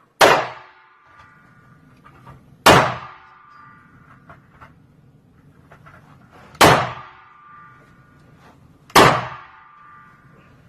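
Four single shots from a Kriss Vector submachine gun, spaced about two to four seconds apart, each followed by a metallic ringing that fades over about a second.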